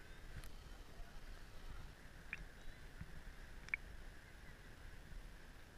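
Calm seawater lapping faintly at the waterline, a low steady wash with a few small ticks.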